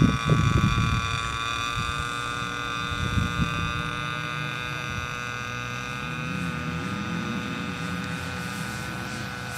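Turnigy 4260 500KV brushless electric motor and propeller of a Piper Cub J3 40 RC plane in flight, a steady whine of several high tones. Wind buffets the microphone in the first second and again around three seconds in.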